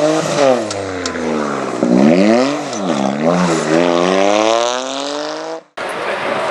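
Rally car engine taking a hairpin. The revs fall about two seconds in, then climb steadily as the car accelerates away. The engine note cuts off abruptly near the end, leaving a softer steady rushing background.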